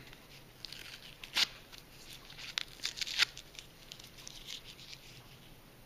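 Thin plastic wrapping crinkling and tearing as it is peeled off a Grodan rockwool grow cube, in scattered crackles with two sharper snaps, about one and a half and three seconds in.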